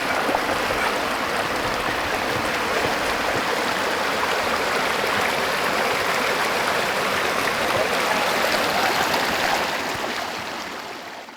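Creek water rushing steadily, fading out near the end.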